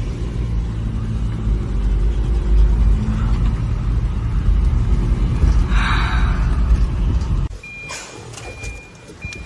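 Car driving, heard from inside the cabin: a steady low rumble of engine and road noise that drops off suddenly about seven and a half seconds in as the car stops. After that a short high beep starts repeating at an even pace, the car's warning chime.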